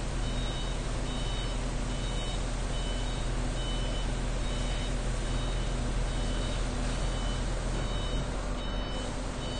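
Warning beeper on a truck-mounted crane sounding a steady repeating beep, a little under two beeps a second, over the steady drone of the crane truck's running engine while the telescopic boom is being worked.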